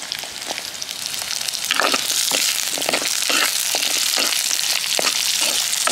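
Shallots, garlic, curry leaves and pandan leaves sizzling in hot coconut oil in a pot, the sizzle swelling about two seconds in. There are a few light knocks as they are stirred with a spoon.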